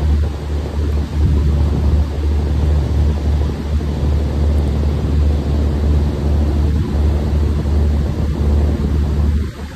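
Heavy unloading machinery running with a steady low rumble and a broad rushing noise over it, as iron ore is unloaded from a barge's hold.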